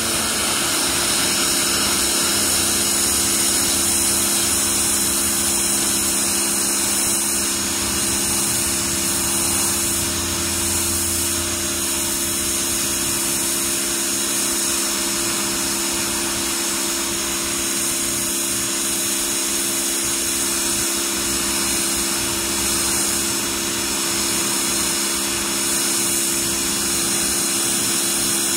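Pressure washer running steadily and loudly: the pump's motor hum under the hiss of the high-pressure water jet spraying onto concrete.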